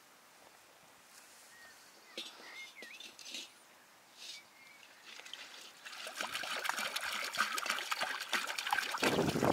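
Water poured into an empty cast-iron cauldron, splashing on the metal bottom. It begins about halfway through and gets steadily louder.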